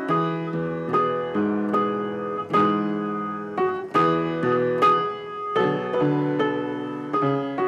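Instrumental background music led by piano, playing a melody of struck notes over sustained chords.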